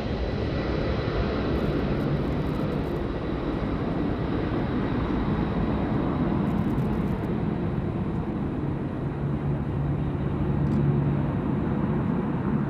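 Boeing C-17 Globemaster III's four turbofan engines at takeoff thrust as the aircraft lifts off and climbs away: loud, steady jet engine noise with a low hum, and a thin high whine that fades over the first few seconds.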